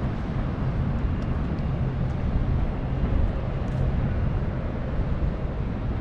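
Steady low engine rumble with a faint hum.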